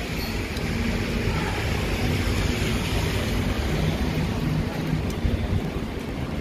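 Steady city street noise in heavy rain and wind: traffic passing under a constant hiss of rain, with a low rumble of wind.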